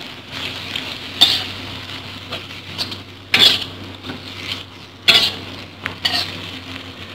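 Metal spatula scraping and knocking against a wok as greens and chopped century egg are stir-fried, over a light sizzle. The sharpest scrapes come about a second in, at about three and a half seconds and at about five seconds.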